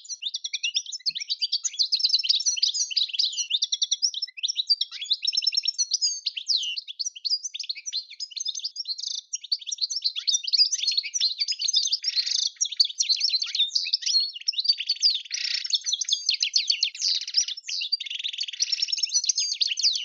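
European goldfinch singing: a long, fast, unbroken twittering of high chirps and trills.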